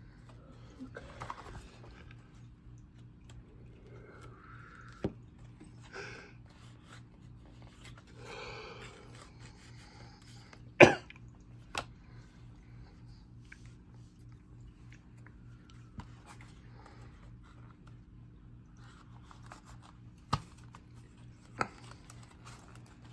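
Playing cards and their small cardboard box being handled on a wooden table: quiet rustling with several sharp taps, the loudest about eleven seconds in.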